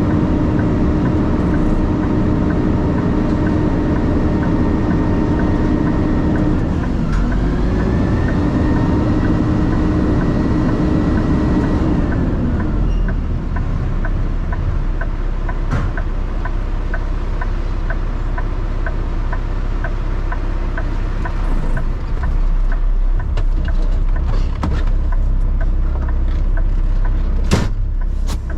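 Truck engine running at raised revs with a steady note that dips briefly and recovers, then falls back about twelve seconds in. After that the engine rumbles on under a regular ticking of about two a second.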